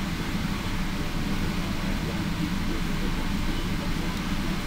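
Indian Pacific passenger train's stainless-steel carriages rolling past, a steady low rumble of wheels on rail with no break.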